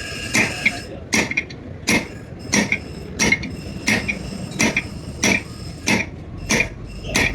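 Steady hammer blows on metal, about three strikes every two seconds, each with a short metallic ring.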